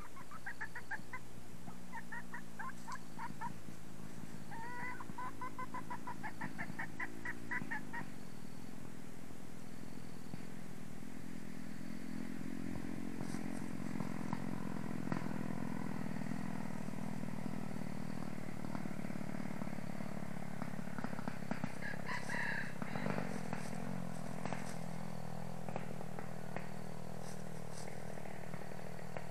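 Red junglefowl hen clucking: rapid trains of short, sharp clucks through the first eight seconds, then low, drawn-out calls, with a brief higher call about two-thirds of the way in.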